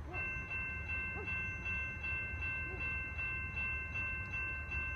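Railway warning bell starting to ring just after the start: a steady ringing at several pitches, re-struck about two and a half times a second. It is the signal of an approaching train.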